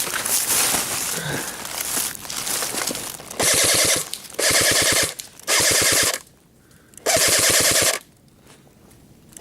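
An airsoft automatic electric gun firing four short full-auto bursts, the first about three and a half seconds in. Each burst lasts under a second, at a rapid, even rate of fire, with short pauses between them.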